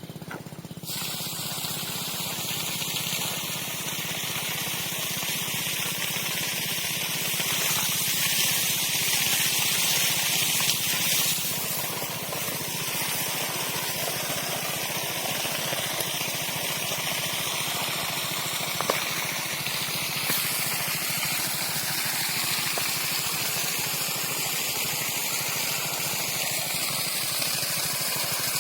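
Homemade water pump driven by a washing machine motor, running steadily with a motor hum under an even rush of spraying, gushing water; it starts up about a second in.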